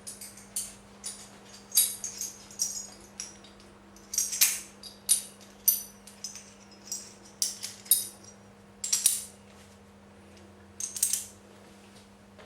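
Steel wheel spanner pieces clinking and rattling against each other as they are handled and gathered together, a run of sharp, irregular metallic clinks that stop about a second before the end.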